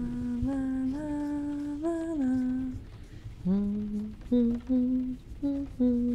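A woman humming a slow tune with long held notes that step up and down in pitch, breaking into shorter, separate notes about three and a half seconds in.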